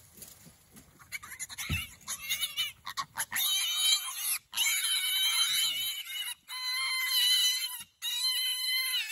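A piglet screaming in distress as it is caught and held down: loud, long, high-pitched squeals start about two seconds in and go on with short breaks.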